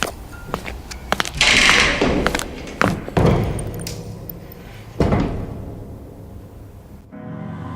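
Clattering knocks and two heavy thuds, like a door slamming, echoing in a large room. A scraping burst of noise comes about a second and a half in. Near the end the sound cuts sharply to dark, droning music.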